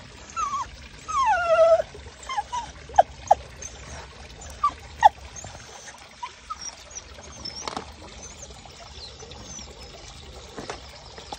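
Dog whining in eagerness at fish in the pond: two drawn-out whines falling in pitch in the first two seconds, then a string of short, high whimpers. A faint steady trickle of water runs underneath.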